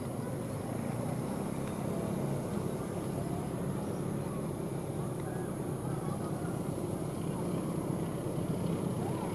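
Diesel locomotive engine rumbling as a passenger train approaches, growing steadily louder, the engine working hard with dark exhaust smoke.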